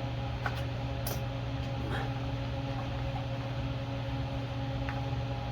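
Steady machine hum holding several fixed pitches, with a few faint clicks in the first two seconds.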